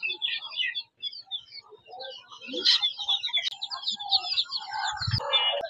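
Caged young chickens peeping together, many overlapping high chirps that grow busier in the second half. A short low knock comes near the end.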